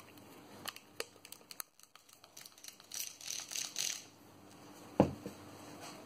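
Faint handling sounds from cleaning around a wooden spirit level's vial with a cotton bud: scattered small clicks and scratchy rubbing, and one sharp knock about five seconds in.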